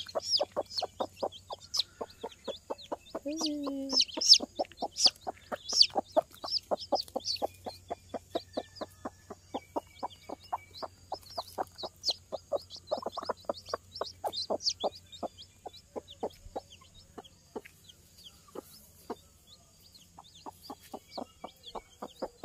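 Broody mother hen clucking in a steady run of short, low clucks, about three or four a second, with her newly hatched chicks peeping in high, thin chirps.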